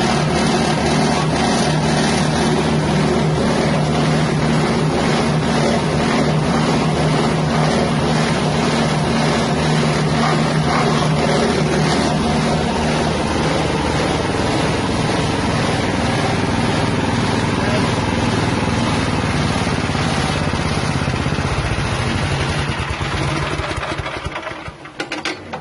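Engine-driven spice grinding mill powered by a 6.5 hp engine, running loudly and steadily. Near the end it slows and dies away as the engine is shut down.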